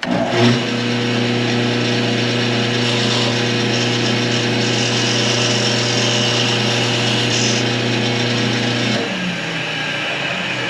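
Wood lathe starts suddenly, running with a steady motor hum and a hiss from the spinning workpiece and tool. About nine seconds in the hum drops away and the sound gets a little quieter.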